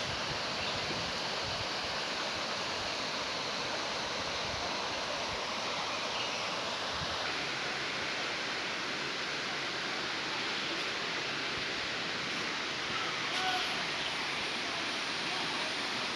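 Waterfall: rushing water making a steady, even hiss with no breaks.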